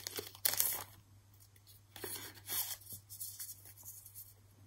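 Clear plastic packaging sleeve and paper card rustling and crinkling as Polaroid photos are pulled out of them. The sharper crackles come in the first second, followed by softer, scattered rustles.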